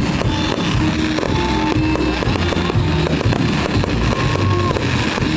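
Fireworks going off in rapid crackling bursts over loud music with sustained notes.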